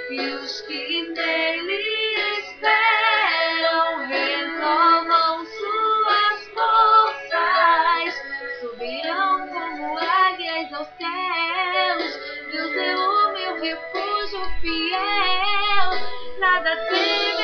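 A woman singing a Portuguese worship song over instrumental backing, her voice moving in long wavering runs and held notes with vibrato.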